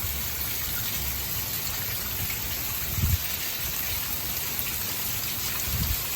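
Steady rain falling, an even hiss, with two brief low thumps, one about three seconds in and one near the end.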